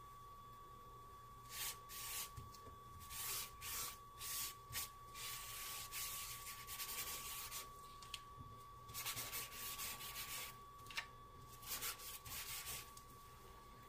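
A charcoal drawing tool rubbing and scratching across paper in quick, irregular strokes, shading a sketch. The strokes begin about a second and a half in and come in short runs with brief pauses between them.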